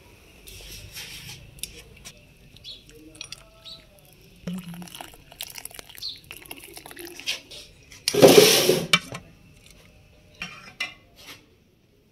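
Steel pots, ladle and cups clinking and knocking while milky tea is ladled and poured through a mesh strainer. A loud burst of noise, about a second long, comes about eight seconds in.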